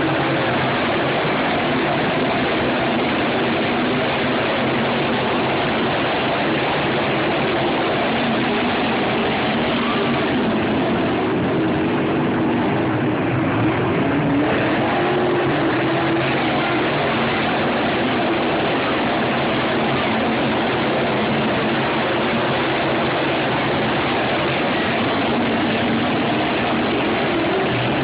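A pack of dirt late model race cars running laps together, their V8 engines a steady, loud, unbroken drone whose pitch wavers up and down as the cars go through the turns.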